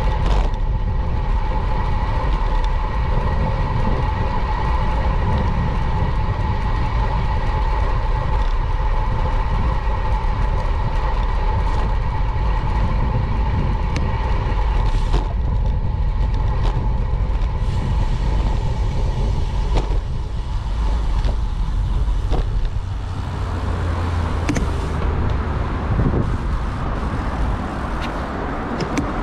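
City street traffic heard from a moving bicycle: motor vehicles running nearby under a heavy low rumble. A steady high hum or whine runs through the first two-thirds and fades out about twenty seconds in, with a few short clicks along the way.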